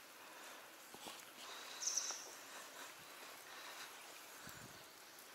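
Faint outdoor ambience with a short high chirp about two seconds in and a few soft clicks.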